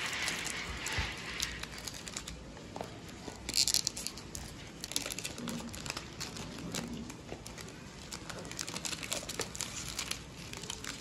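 Clear plastic shrink-wrap being peeled off a perfume box and crumpled in the hands, crinkling and crackling irregularly, with one louder crackle about three and a half seconds in.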